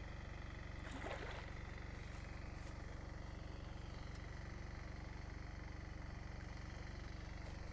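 A hooked carp splashing once at the surface close to the bank, a short burst about a second in, over a steady low background hum.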